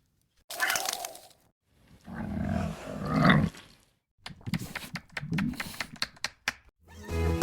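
A dog growling in several rough bursts, with some clicks in between. Music starts just before the end.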